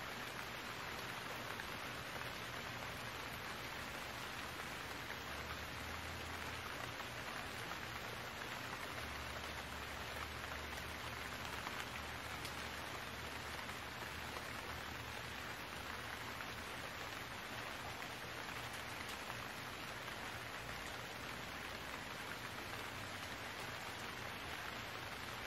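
Steady hiss of falling rain, with a faint low hum underneath.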